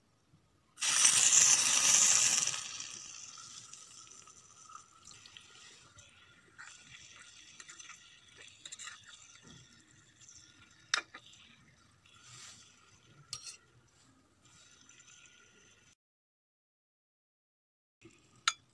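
Water poured from a small plastic jug into a miniature steel pot of sugar for about two seconds. Then a spoon stirs in the pot, with light scraping and a few sharp clinks of metal on metal.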